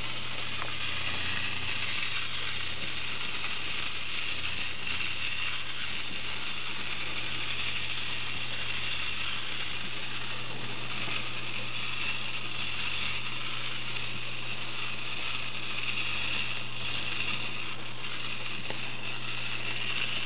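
Clockwork motor of a vintage Occupied Japan wind-up walking bear toy whirring steadily as the toy walks.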